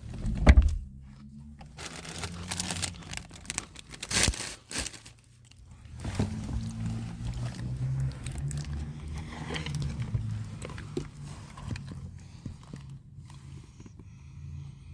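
Crinkling of a chip bag and crunching of chips being eaten, with a sharp thump about half a second in and a low rumble from about halfway through.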